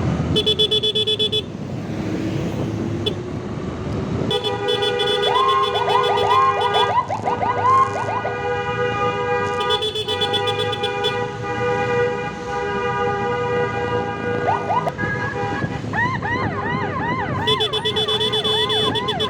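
Electronic emergency siren with long steady multi-tone horn blasts. A fast rising-and-falling yelp starts about a third of the way in, and near the end it settles into quick sweeps of about three a second. Road traffic and engine noise run underneath.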